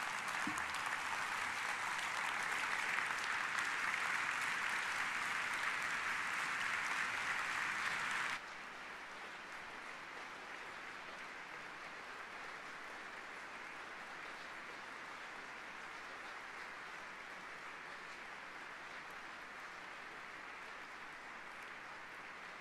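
Large audience applauding. The applause drops abruptly to a lower level about eight seconds in and then goes on steadily.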